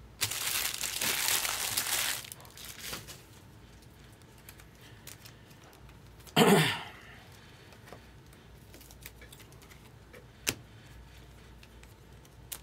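Foil trading-card pack wrapper crinkling and tearing for about two seconds. About six seconds in there is a single short cough, the loudest sound, and later one sharp click.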